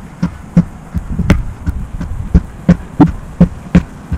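Sledgehammer striking a large rubber tractor tire again and again, a quick series of smacking thuds, several a second at the fastest.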